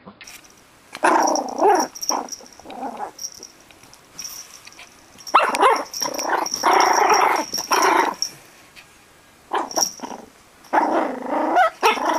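Yorkshire Terrier puppy growling and yipping in play, in several short bursts a few seconds apart.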